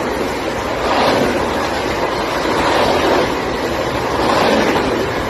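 Seemanchal Express passenger train rushing past at high speed: a steady roar of wheels on rail and air rush, swelling every second or two as the coaches go by. No horn note stands out.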